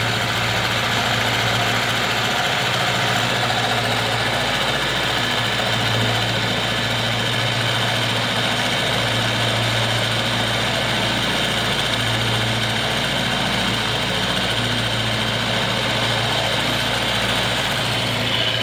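JET JMD-45PFD mill-drill running steadily under power feed while a 16 mm slot cutter takes a 1 mm-deep cut. Its low hum swells and fades every few seconds.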